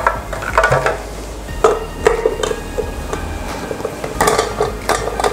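Clinks and knocks of a stainless steel mixer jar and its plastic fittings being handled and lifted, with a cluster of knocks about four seconds in.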